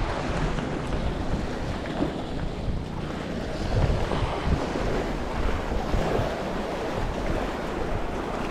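Wind buffeting the microphone over the wash of sea waves, an uneven rumbling hiss that rises and falls with the gusts.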